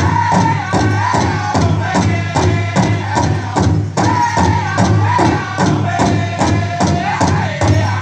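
Powwow drum group playing: several singers strike a large shared drum in a steady beat, about three strokes a second, while voices sing a high song in unison over it.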